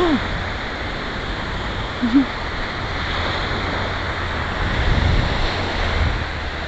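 Ocean surf washing in strongly on the shore, a steady rush with wind rumbling on the microphone. A brief pitched sound sits at the very start and another about two seconds in.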